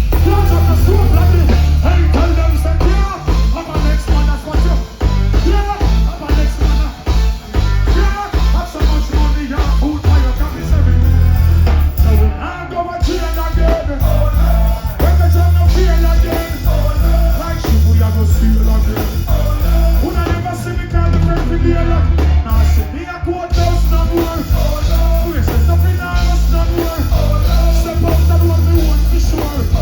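Live reggae band music played loud, with a heavy, pulsing bass line under the instruments.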